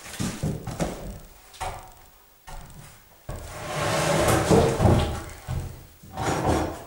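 Wooden planks being shifted and stacked: a few knocks of board against board, then a long scrape as a plank is slid across the other boards, and a last clatter near the end.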